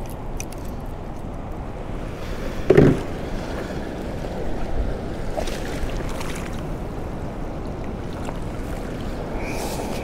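Steady rush of river current flowing and swirling around wading legs in a shallow shoal, with a brief thump just under three seconds in.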